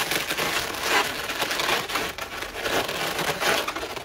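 Inflated latex modelling balloons rubbing and squeaking against each other as they are squeezed and pushed into a woven balloon ball, in a few uneven bouts.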